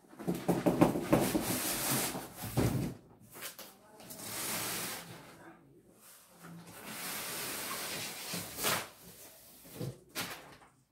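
Cardboard boxes scraping, rubbing and knocking as a boxed electric guitar is slid out of its outer shipping carton and its flaps are opened. The handling is loudest in the first three seconds, followed by longer hissing slides of cardboard against cardboard and a few sharp clicks near the end.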